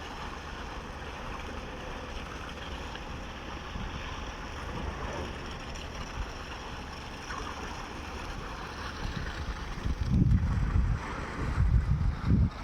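Sany 47-metre truck-mounted concrete pump running with a steady mechanical drone. Near the end, wind buffets the microphone in heavy low gusts.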